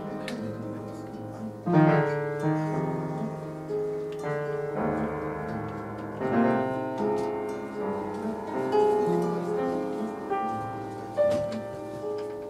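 Upright piano and acoustic guitar improvising together. Sustained piano chords and single notes ring out, with fresh chords struck about two, six and eleven seconds in.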